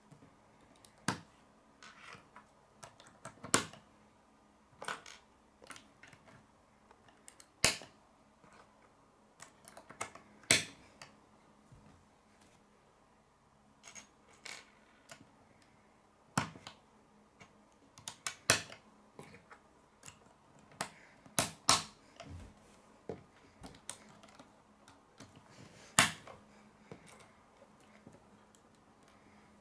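Plastic K'nex rods and connectors clicking as they are snapped together and set down on a wooden table: irregular sharp clicks, with a handful of louder snaps spread through.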